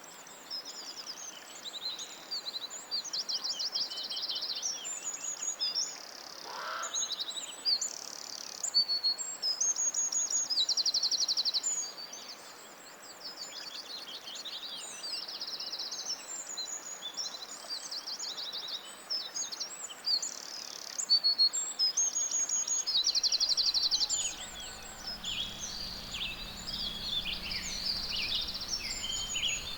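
Several songbirds singing together, overlapping high chirps and rapid repeated trills with short pauses between phrases. A low steady hum comes in about three-quarters of the way through.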